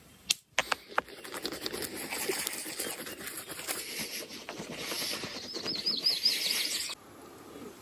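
Steady rustling full of small crackles and clicks, with a bird giving a quick run of about eight chirps about five seconds in; the rustle drops away near the end.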